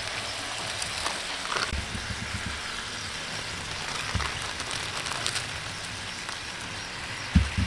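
Beef burger patties sizzling in a hot metal pan: a steady frying hiss with scattered small pops and crackles. A brief thump near the end.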